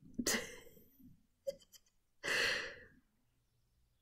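A person breathing out audibly twice, close to the microphone, about two seconds apart, with a faint short blip between the breaths.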